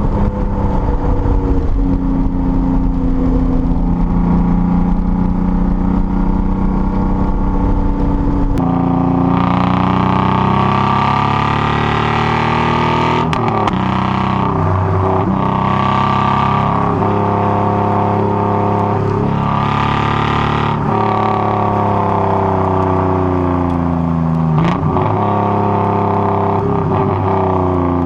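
Datsun 240Z's inline-six engine and exhaust: a steady drone for the first eight seconds or so, then the revs climb and fall several times with quick drops in pitch as gears are changed.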